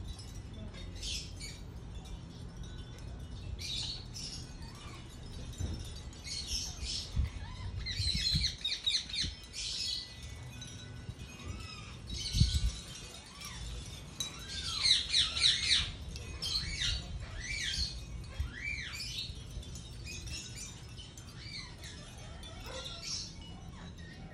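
Blue-mutation Indian ringneck parakeets chattering and squawking in clusters of rapid, high chirps, busiest about eight seconds in and again around fifteen seconds, with a few short rising-and-falling whistles between. A dull thump about twelve seconds in is the loudest moment.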